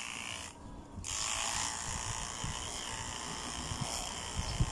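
Corded electric pet grooming clipper running with a steady buzz as it shears a Maltese's long white fur. The buzz drops away briefly about half a second in, then comes back and runs on.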